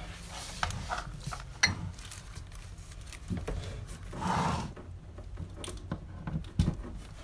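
Handling noise of an electric wax warmer's cord being plugged in: rustling with a few scattered light clicks and knocks, and a muffled swell of sound about four seconds in.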